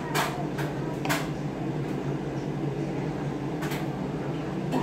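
A few short, light clicks and taps, three in the first second or so and two more near the end, over a steady low hum.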